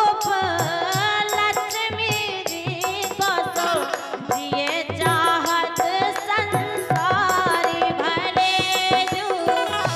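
Bundeli folk song performed live: a woman singing with harmonium accompaniment and a steady drum beat.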